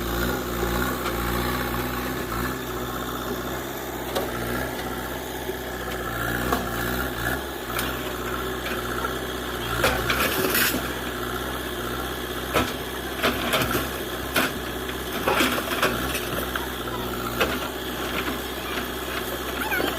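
JCB 3DX backhoe's diesel engine running steadily at idle, with scattered sharp knocks and clanks over it, most of them in the second half.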